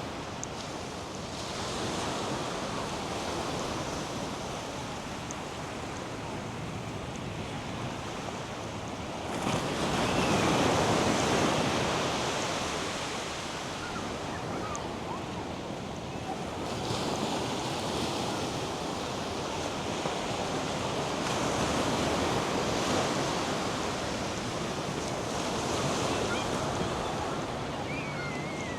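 North Sea surf breaking and washing up a sandy beach in a steady rush, with wind. It swells loudest about a third of the way in, then rises and falls again in several smaller surges.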